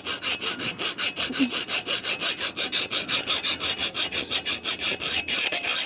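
A hacksaw cutting through a steel handcuff in rapid, even back-and-forth strokes. A thin, high ringing tone from the blade on the metal joins about two seconds in.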